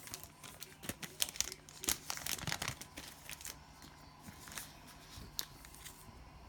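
Trading cards and cellophane pack wrapping being handled: irregular crinkling and rustling with sharp little clicks, busiest in the first few seconds and sparser after.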